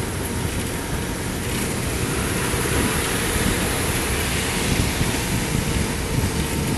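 Steady rush of wind and tyre noise from a moving vehicle travelling on a wet road.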